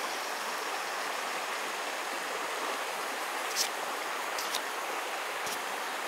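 Steady, even hiss of outdoor background noise, with a few faint, short high ticks in the second half.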